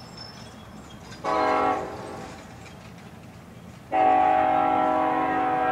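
Union Pacific locomotive's air horn sounding a crossing signal: a short blast about a second in, then a long blast beginning about four seconds in, a chord of several steady tones. Together with the long blast just before, this is the end of the long-long-short-long warning for a grade crossing.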